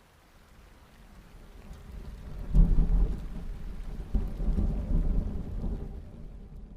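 Thunder rumbling low and rolling, swelling over the first two seconds, hitting its loudest crack about two and a half seconds in, then rolling on and slowly fading.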